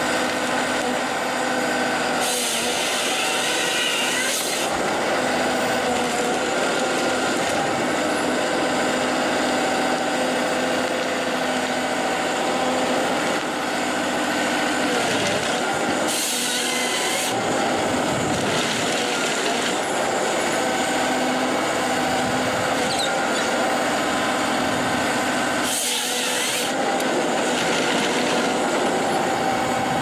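Forestry harvester at work: the machine's engine and hydraulics running steadily while the harvester head feeds and delimbs spruce logs. Three louder, hissier stretches, about 3, 16 and 26 seconds in, as the head's chain saw bar cuts through the trunks.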